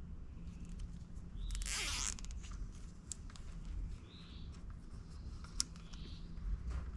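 A short rasping zip, about one and a half seconds in, of a plastic zip tie being pulled through its ratchet to fasten the wire at the base of the pole, followed by a few small clicks of handling. Faint chirps sound now and then in the background.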